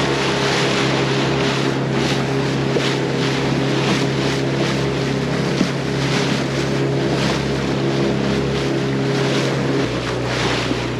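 A motorboat's engine running steadily under way, with wind and water noise. The engine note drops slightly near the end.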